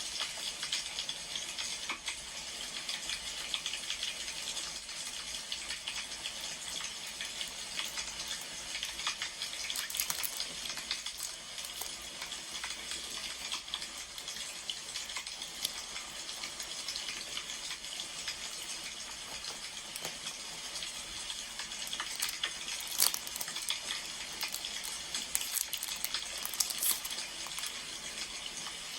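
Wood fire crackling steadily with many small pops, and a few louder snaps about two-thirds of the way in.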